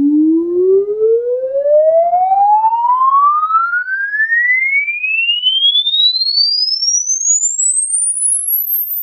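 Definitive Technology Demand D7 bookshelf speaker playing a measurement sine sweep: one pure tone gliding smoothly and steadily upward from a low hum to a very high whistle, then cutting off near the end. Faint higher overtones follow the main tone.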